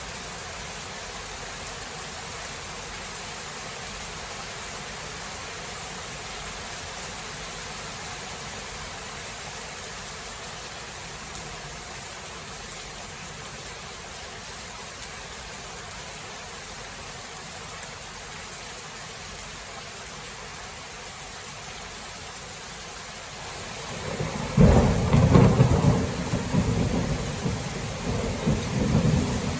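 Steady rain falling as a thunderstorm, then about 24 seconds in a loud crack of thunder breaks in and rolls on, rumbling low.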